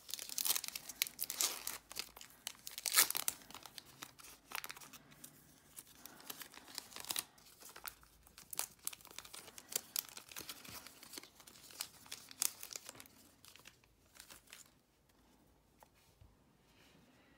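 A paper trading-card pack wrapper being torn open by hand and crinkled, in a run of sharp rustles and rips. The sound dies down to faint handling of the cards about fourteen seconds in.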